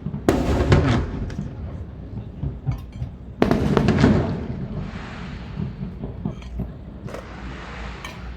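Fireworks bursting overhead: a loud bang about a third of a second in and another about three and a half seconds in, each trailing off in a long rumble, with scattered smaller crackles in between.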